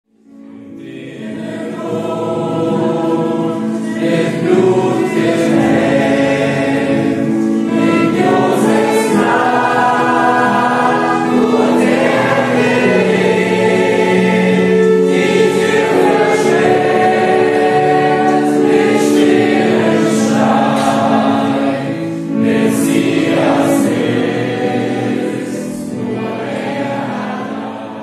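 A group of voices singing a German Christian hymn together, accompanied by violin and acoustic guitar. It fades in at the start and fades out near the end.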